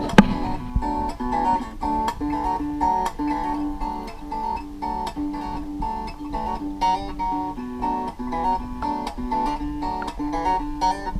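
Background music: a plucked acoustic guitar playing a steady, repeating melody.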